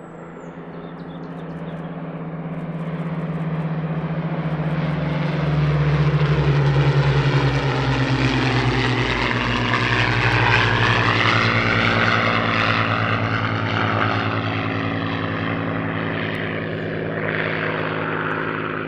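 Hawker Hurricane Mk I and Supermarine Spitfire Mk V flying past together, their Rolls-Royce Merlin V12 engines droning. The sound builds over the first few seconds, is loudest in the middle, with the note shifting in pitch as they pass, and eases off near the end.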